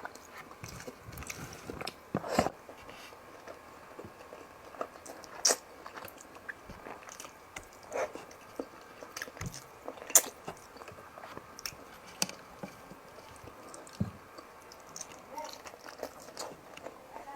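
Close-miked mouth sounds of a person eating fish and rice: soft chewing broken by sharp wet smacks and clicks every second or so, a few of them louder.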